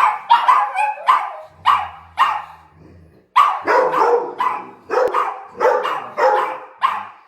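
Chihuahuas barking in a quick run of short, sharp barks, excited at someone coming home, with a brief lull about halfway through.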